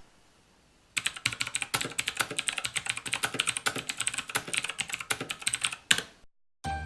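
Tomoko 87-key mechanical keyboard with clicky blue switches being typed on fast, a dense run of key clicks starting about a second in and stopping shortly before the end. A jingle of music starts just as it ends.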